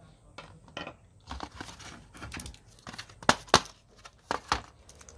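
Plastic packaging crinkling and rustling as the earbuds' charging case is lifted out of its moulded plastic tray and handled in its white protective wrap. An irregular run of crackles, with the loudest sharp ones a little after three seconds in and again about a second later.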